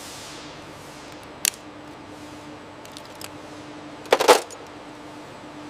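Steady low workshop hum with a faint hiss, a single sharp click about a second and a half in, and a brief loud metallic clatter about four seconds in.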